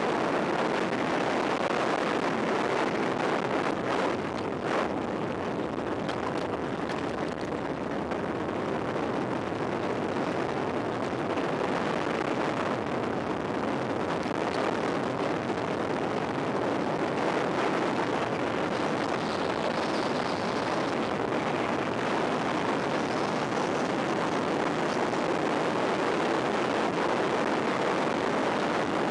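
Steady wind rush over a sunglasses-camera microphone on a mountain bike descending at speed, mixed with tyre noise on rough, cracked asphalt. A couple of sharp knocks around four and five seconds in.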